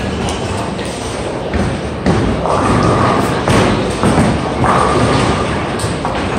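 Busy bowling alley: bowling balls landing on the wooden lanes with heavy thuds and rolling toward the pins, over the steady rumble of many lanes in play. The loudest thuds come about two seconds in and again around three and a half to four seconds in.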